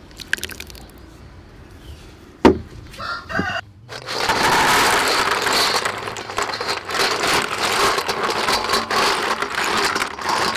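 Sea snail shells poured out of a metal bowl onto a wooden tray: a loud, dense clatter of many shells knocking together that starts about four seconds in and runs on for several seconds. Before it, faint scraping and one sharp knock as chili sauce is scraped from a stone mortar into a glass bowl.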